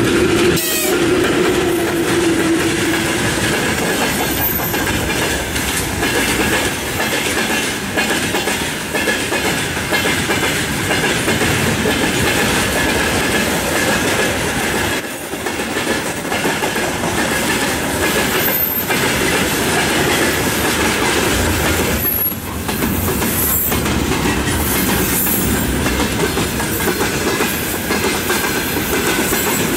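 Freight train wagons rolling past, wheels clattering over the rail joints, with a faint high wheel tone throughout and a low hum that fades in the first few seconds.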